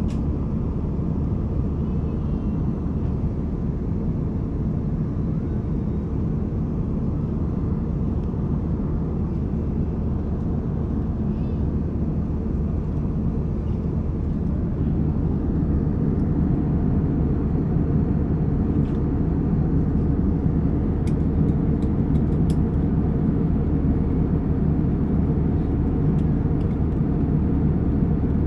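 Steady low drone inside the cabin of a Cebu Pacific Airbus A320: engine and airflow noise, growing somewhat louder about halfway through.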